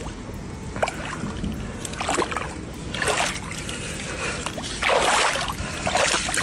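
Shallow water splashing and sloshing in irregular bursts as hands dig into the mud and heave a large soft-shell turtle up out of it; the loudest splashes come about five seconds in.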